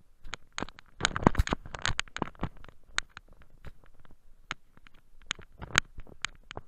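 Footsteps crunching in cold, dry snow: a rapid, irregular run of sharp crunches and clicks, thickest and loudest about a second in, then sparser.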